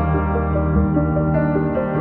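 Background music only: a slow, ambient instrumental piece of held chords over a low bass line, with the notes changing every second or so.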